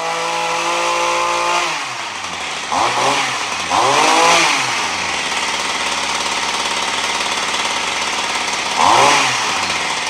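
Small two-stroke engine of a RedMax stick edger running on the bench. It runs fast, drops to idle about two seconds in, then is briefly revved three times, each rev rising and falling back to idle. The idle has just been turned up to suit the load of the straight shaft.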